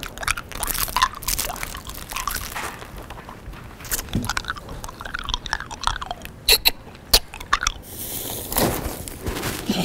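A person chewing and crunching a snack loudly, with irregular crunchy bites and a burst of sharper crunches about two-thirds of the way through.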